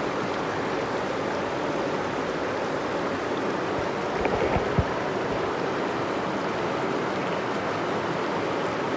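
Creek water rushing steadily, with a few low thumps about four to five seconds in.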